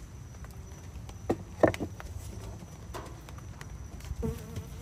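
A few sharp knocks and bumps of a hand against the wooden hive table and hive box, the loudest about a second and a half in and more near the end, over the steady hum of honey bees.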